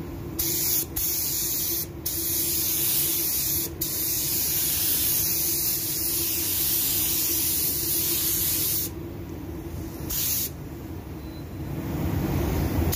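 Automotive gravity-feed spray gun hissing as it sprays clear coat onto a car bumper, in passes broken by brief trigger releases. About nine seconds in the hiss mostly stops, apart from one short burst, and builds again just before the end.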